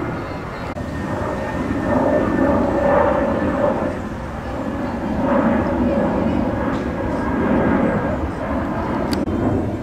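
A loud, steady drone that swells and fades a few times, with people's voices mixed in and one sharp snap about nine seconds in.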